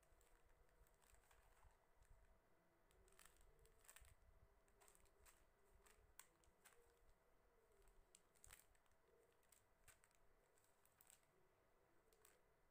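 Near silence, with faint scattered crackles and light clicks from small plastic packets of embroidery beads being handled and set down.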